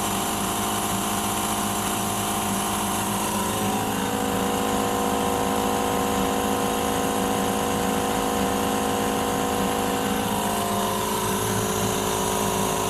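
Cheap electric air compressor running steadily, its pitch shifting slightly twice. It is not building pressure and is blowing air back out through its intake air filter.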